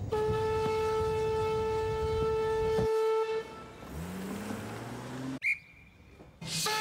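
Steam locomotive whistle sounding one long, steady blast of about three seconds. Then a car engine rises in pitch as the car speeds up over the level crossing, and the whistle starts again right at the end.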